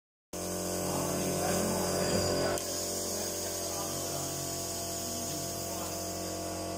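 A plastic bag holding a garment crinkles as it is pushed into place on a bag-sealing press, stopping about two and a half seconds in, over a steady machine hum.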